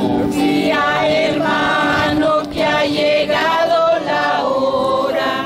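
A group of people singing a song together, several voices at once in a steady, continuous chorus.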